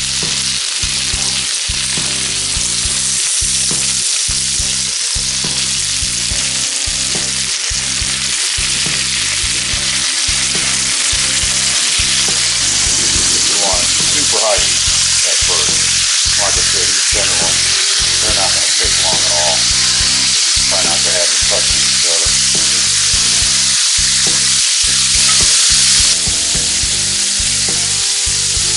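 Venison tenderloin steaks sizzling and frying in butter in a very hot grill-style cast iron pan as more pieces are laid in. The sizzle is steady and briefly louder near the end.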